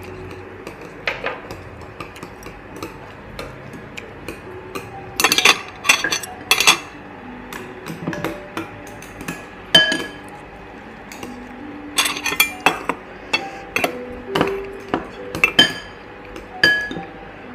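Metal spoons and chopsticks clinking against glass bowls and a hot pot as people eat, in scattered clinks and small clusters of knocks, some leaving a brief ringing tone.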